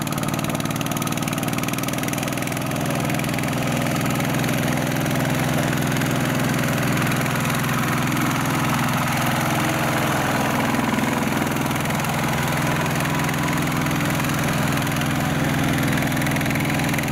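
Single-cylinder diesel engine of a two-wheel walking tractor running steadily while it hauls a loaded rice trailer through deep mud, getting a little louder after about three seconds.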